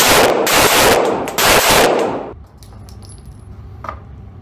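Rapid-fire string of 9 mm shots from a SIG P320 X5 pistol. The shots come so fast that they run together in the echo of an indoor range, and they stop a little over two seconds in. A few faint clinks follow.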